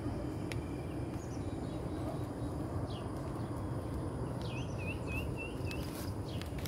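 Forest bird calling: a couple of short falling whistles, then a quick run of about five short repeated chirps near the end, over a steady low rumble.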